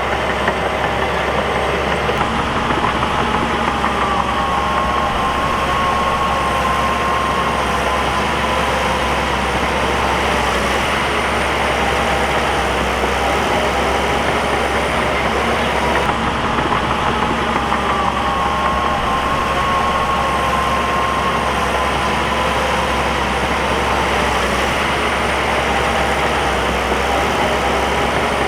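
Bulldozer diesel engine running steadily, with a whine that rises and holds for several seconds, then falls back, twice.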